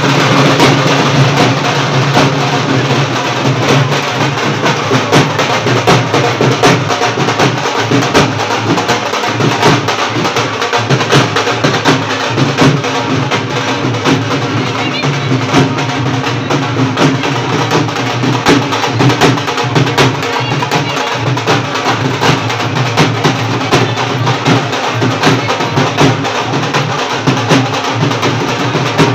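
Dhol drums played in a fast, steady rhythm of sharp strikes.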